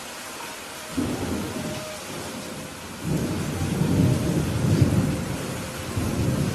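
Thunder rumbling over steady rain. A rumble starts suddenly about a second in, a longer one builds from about three seconds in and fades, and another comes near the end.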